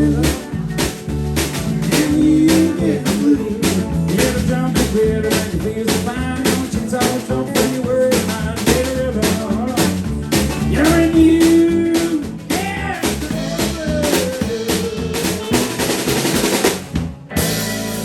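Live country band playing an instrumental passage: a steady drum-kit beat with snare and bass drum under gliding pedal steel guitar lines. The music stops abruptly near the end.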